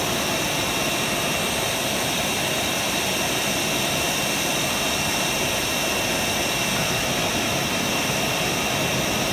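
CNC router with automatic tool changer running: a steady high-pitched spindle whine over an even rushing noise.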